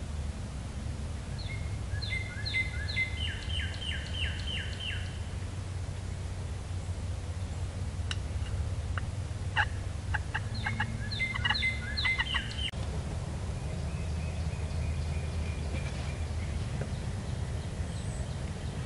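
Wild turkey tom gobbling twice: a rapid run of calls a couple of seconds in and another about ten seconds in, over a steady low woodland rumble.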